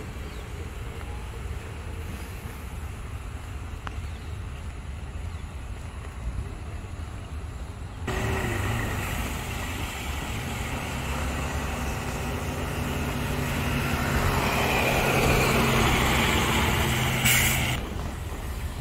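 Road traffic: a low steady rumble, then about eight seconds in a motor vehicle's engine comes in and grows louder as it passes close, before the sound drops off abruptly near the end.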